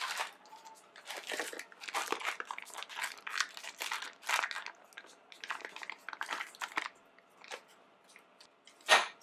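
Foil wrapper of a block of cream cheese crinkling in irregular bursts as it is peeled open and the cheese pushed out into a mixing bowl. A single sharp knock just before the end.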